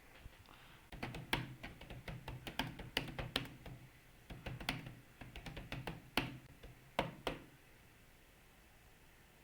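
Computer keyboard being typed on: a quick run of key clicks, a brief pause, then another run that ends in a few single, louder keystrokes.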